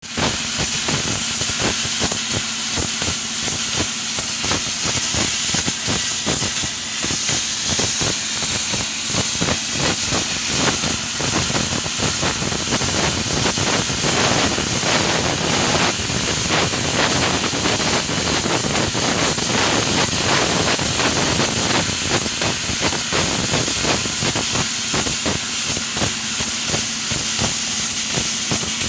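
CNC laser cutter cutting 2.5 mm aluminium sheet: a steady hiss of assist gas with constant crackling, over a low steady hum.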